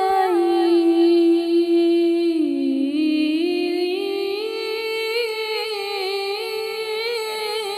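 A woman's solo singing voice drawing out one long melismatic note in a devotional Urdu song, sliding down in pitch about two and a half seconds in, then climbing back and holding a higher note.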